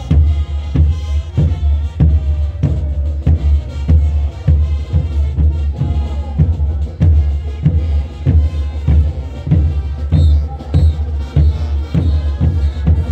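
Brass band playing a morenada, horns over a steady drum beat of about two strokes a second.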